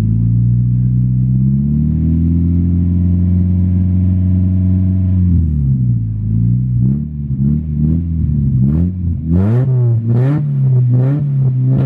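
Mazda Miata's four-cylinder engine running with no exhaust fitted, loud and boat-like. It is held at raised revs for a few seconds, falls back, then is blipped in a string of quick revs through the second half.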